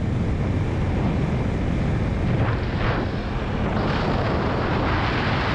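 Motorcycle ridden at about 87 km/h on an expressway: steady, loud wind rush over the microphone, with the engine and tyre noise underneath.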